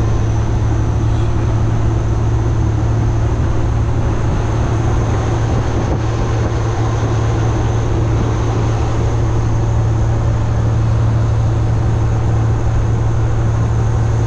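Kenworth W900 semi truck's diesel engine and road noise heard from inside the cab: a loud, steady drone with a constant low hum.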